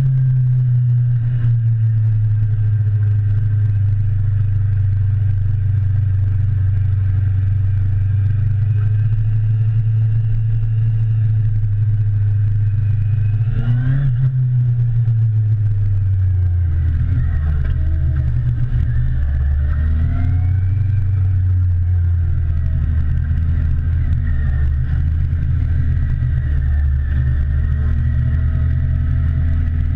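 Motorcycle engine of the rider's own bike running under steady throttle while riding. About halfway through it gives a short rev, then its note drops lower and wavers for the rest of the ride.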